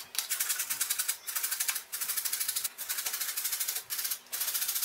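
Peeled raw potatoes being grated on a stainless steel box grater: fast, rhythmic rasping strokes, broken by a few short pauses.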